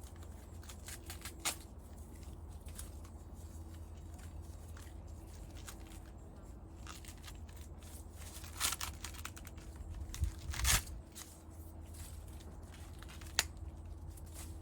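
Sweet corn plants rustling and tearing as ears are picked from the stalks, with scattered crackles and two louder bursts of tearing about nine and eleven seconds in, over a steady low hum.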